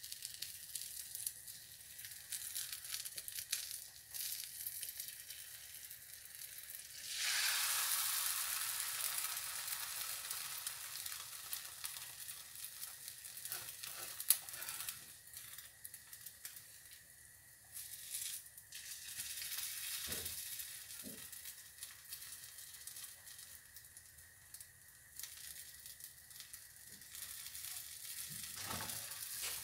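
Egg and mushroom omelette sizzling in a hot frying pan. The sizzle swells sharply about seven seconds in, with one sharp tap about halfway and a few light knocks of the slotted spatula against the pan as the omelette is lifted and folded.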